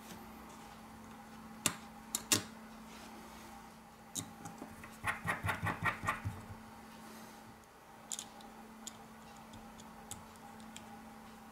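Light clicks and taps of small plastic and metal phone parts and hand tools being handled as a smartphone's motherboard is fitted into its frame: three sharp clicks about two seconds in, a quick rattle of about eight clicks a little past the middle, then a few faint ticks, over a steady faint hum.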